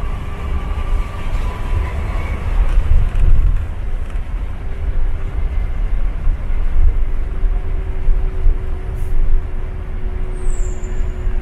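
Cabin noise of a Hino-chassis coach cruising at speed: a steady low engine rumble and road noise with a faint droning tone. A brief high squeak sounds near the end.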